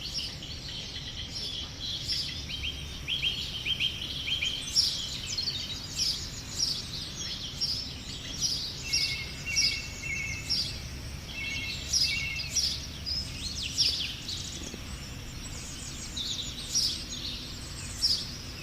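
Several songbirds singing in woodland: rapid high chirps and song phrases repeating throughout, with a short lower two-note phrase repeated a few times midway, over a steady low background rumble.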